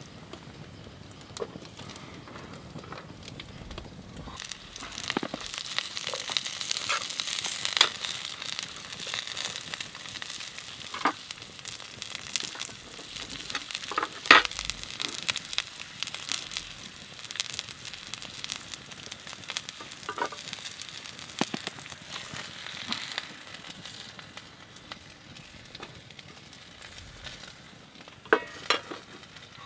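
Sliced onions and garlic sizzling in a pan over a wood campfire, the sizzle growing stronger a few seconds in, with occasional sharp pops.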